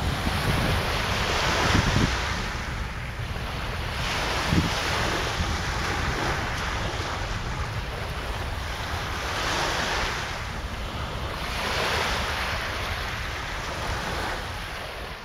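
Lake Michigan surf washing ashore in hissing surges every two to three seconds, over strong wind rumbling on the microphone.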